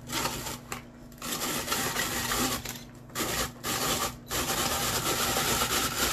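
Hand-cranked Fusion Master rotary drum shredder grating cabbage: a scraping, grinding noise in spells of up to two seconds with brief pauses, then steady through the last two seconds.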